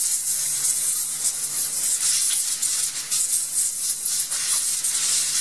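Compressed-air blow gun hissing steadily as it blows dirt off a removed fuel tank.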